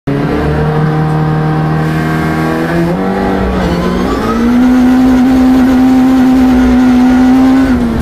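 Peugeot 306 rear-wheel-drive rally car's engine, heard from inside the cabin on a gravel stage. Its note holds steady, then steps up in pitch about three seconds in and again about four seconds in. It stays at that higher, louder pitch until it drops just before the end.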